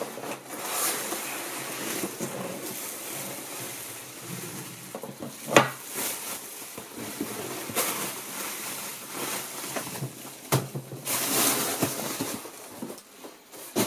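Bubble wrap crinkling and rustling and a cardboard box scraping as an aluminium flight case is pulled out of its packaging, with a sharp knock about five and a half seconds in and a few lighter knocks later.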